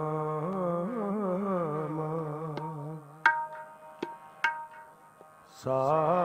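Sikh devotional kirtan music: a long held melodic line that bends and wavers in pitch. It drops away about three seconds in to a near-pause broken by a few sharp, ringing tabla strokes, and the melody comes back just before the end.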